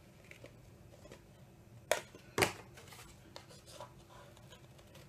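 Small safety scissors cutting an eye hole in a paper plate: a series of faint snips, with two louder cuts about two seconds in.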